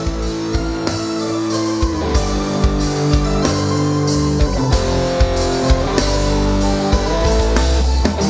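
Instrumental band music: a guitar-led melody of held notes over bass and a steady drum-kit beat, with no singing.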